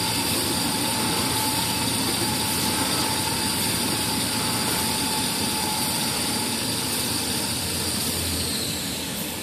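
Kitchen towel paper converting line running: a steady machine noise with high-pitched whining tones over it, which dip slightly and fade near the end.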